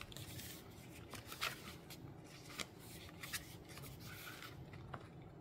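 Faint rustling and light taps of paper notebook refills and a clear plastic cover being handled and lifted off a leather notebook cover, with several small sharp clicks.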